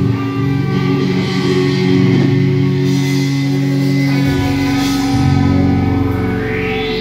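Live instrumental rock from electric guitars and drums: sustained guitar drones over a low note that shifts twice, with swelling cymbal washes, and a sound sweeping up in pitch near the end.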